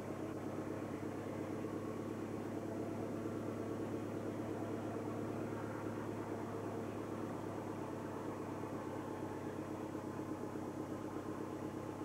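An engine idling steadily, with a fast even pulse, swelling slightly a few seconds in.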